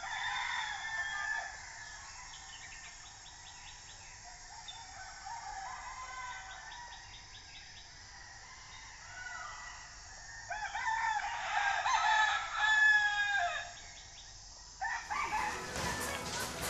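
A rooster crowing, loudest about eleven to thirteen seconds in, among other chicken and bird calls and runs of fast chirping. Near the end the sound cuts abruptly to music and voices.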